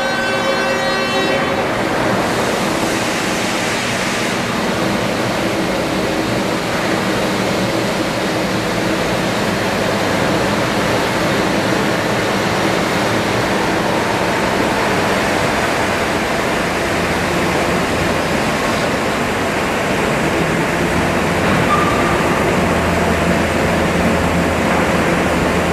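Steady rumbling train noise, with a dense hiss and faint held tones, and a short horn-like tone about 22 seconds in.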